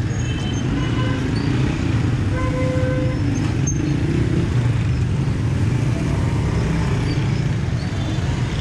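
Busy street ambience of a crowded bazaar: a steady low rumble of motor traffic. A short horn-like toot sounds about two and a half seconds in, and there is a single sharp click a second later.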